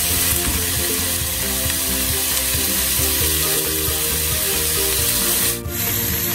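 Mixed vegetables sautéing in oil in a covered frying pan over a high-medium flame, a steady sizzling hiss under the glass lid. The sound dips briefly near the end.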